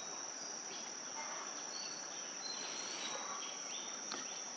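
Insects droning outdoors, one steady high-pitched tone that does not change, with a few faint short high chirps in the middle.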